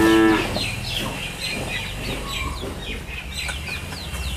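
Birds chirping over and over in short falling calls, with a low background hum.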